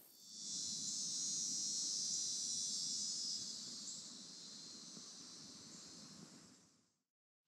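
Steady high-pitched chorus of insects, fading out over the last few seconds and cutting to silence shortly before the end.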